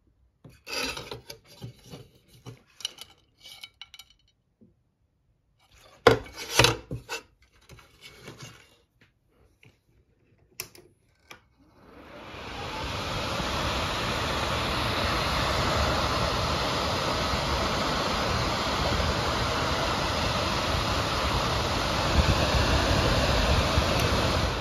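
Nidec brushless oven fan: for the first half its impeller is turned and handled by hand, giving scattered rubbing and clicking sounds. About twelve seconds in the motor is powered, and the impeller spins up within a couple of seconds to a steady, loud rush of moving air that holds.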